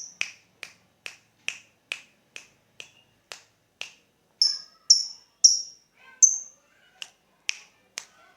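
Lovebird giving its sharp, repeated 'ngetik' ticking call, about two short chips a second. About halfway through, a few higher and brighter chirps break in before the ticking resumes.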